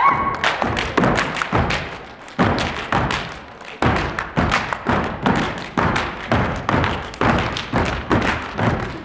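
Step team stepping in unison: boots stomping on a wooden stage floor with hand claps, a quick, uneven rhythm of several strikes a second.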